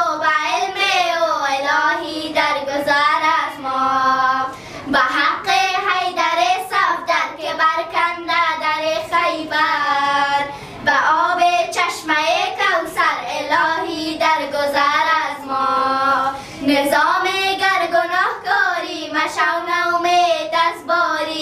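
Two young girls singing a Persian devotional hymn (hamd) together in unison, unaccompanied, the melody moving in long sung phrases with short pauses for breath.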